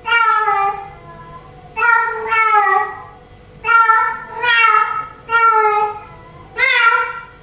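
Female cat in heat calling for a tom: a run of short, loud meows, about one a second, each dipping slightly in pitch.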